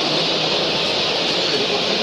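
Steady, dense hissing din, strongest in the upper range, unbroken and even in level, with a faint murmur of voices underneath.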